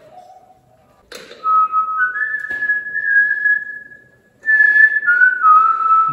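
A person whistling a short tune in two phrases, stepping up and down between a few notes. A faint click comes about two and a half seconds in.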